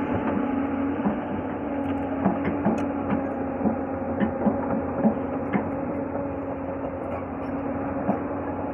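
Hyundai crawler excavator's diesel engine running steadily under load, with irregular knocks and crunches as its bucket presses and scrapes stony soil flat.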